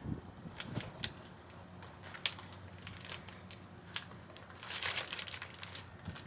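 Rustling and crinkling of a plastic bag and rag being handled and wrapped around an outdoor water spigot, with scattered clicks. Several short, high, thin whistling tones come in the first three seconds, and a louder stretch of rustling follows near the end.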